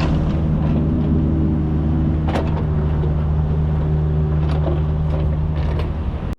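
Kubota U55 mini excavator's diesel engine running steadily under work, with a few sharp knocks of the machine working dirt. The sound cuts off abruptly at the end.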